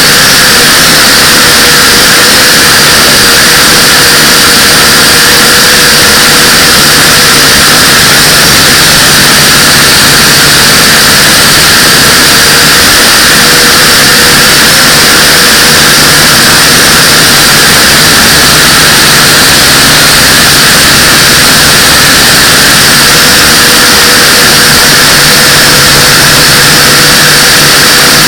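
Small quadcopter drone (Pioneer UFO 509V) motors and propellers running steadily in flight: a loud, constant whir with heavy hiss and a faint steady hum, near full level and unchanging.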